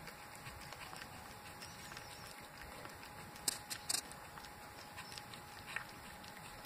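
Cat eating raw chicken and egg from a bowl: faint wet chewing and licking with small scattered clicks, and a cluster of sharper clicks about halfway through.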